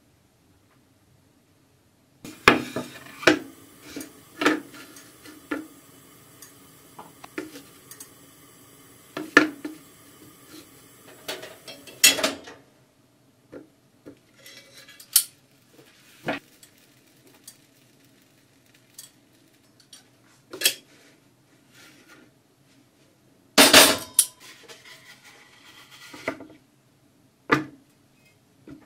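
Kitchen clatter of hard objects, among them a small cast-iron pan, being handled and set down on a wooden cutting board: scattered sharp knocks and clinks after a couple of seconds of quiet, the loudest a double knock about two-thirds of the way through.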